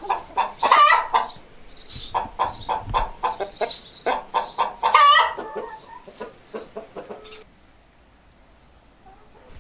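Chickens squawking and clucking noisily in rapid, repeated calls, with louder, longer calls about one second and five seconds in. The calls thin out and fade after about six seconds.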